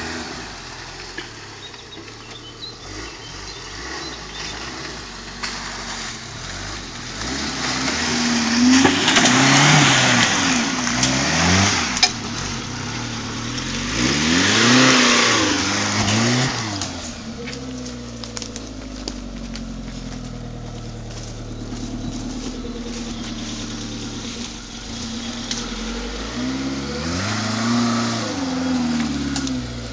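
Suzuki Samurai's engine revving up and down hard in repeated bursts as it drives off-road through mud: three big rises in revs, about a quarter in, halfway and near the end, with a loud rushing noise during the first two, and steadier running in between.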